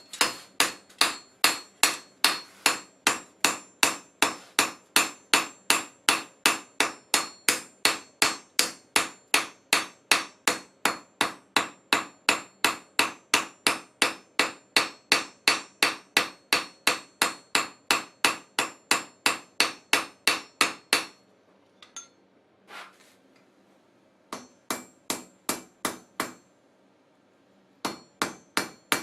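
Hammer forging a steel silversmithing hammer head on an anvil: a long run of steady, ringing blows at about three a second. About two-thirds of the way through it stops, and after a pause there are a few scattered strikes and two short groups of blows.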